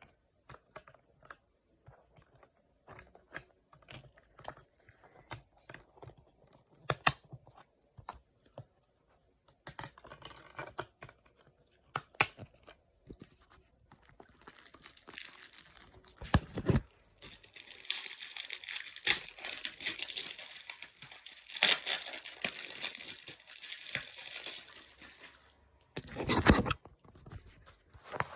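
Hands handling a 4K Blu-ray steelbook case and its contents: light clicks and taps at first, then from about halfway a long crinkling, tearing-like rustle of packaging, with a couple of louder knocks.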